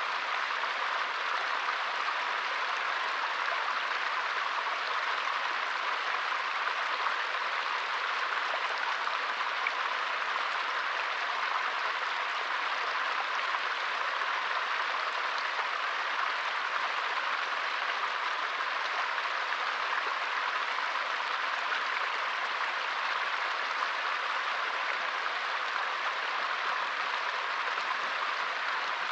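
Small forest stream flowing: a steady, even rush and splash of water.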